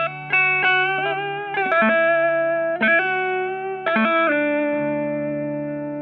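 Background music: a guitar played through effects, picking single notes in a slow melody over a held low note.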